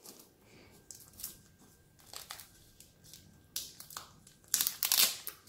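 Plastic comic-book bag crinkling as it is handled and worked open, a string of short crackles with the loudest burst near the end.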